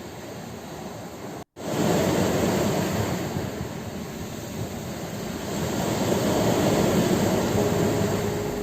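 Ocean waves breaking on a shore, a steady wash of surf that swells up twice. The sound cuts out completely for a split second about a second and a half in, then comes back with a wave surging in.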